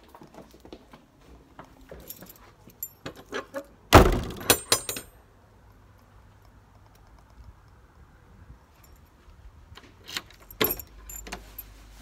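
A bunch of keys jangling and clicking, with a single loud bang about four seconds in, followed by a second of rattling: the glazed front door being pulled shut on its nightlatch. Near the end, more key jingling and clicks as a new key is brought to the rim cylinder.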